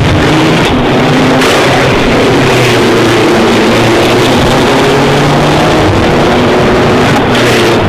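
Racing car engines running, a loud steady drone with several pitches drifting slowly up and down.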